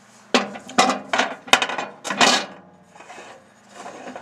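Hard knocks and clinks of glassware being handled and set down, a quick run of about eight within two seconds, then a few fainter knocks.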